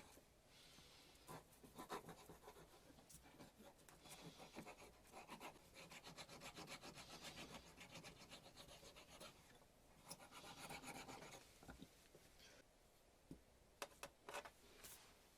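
Faint scraping and rubbing in stretches of quick strokes, like filing or rubbing by hand, with a few sharp clicks near the end.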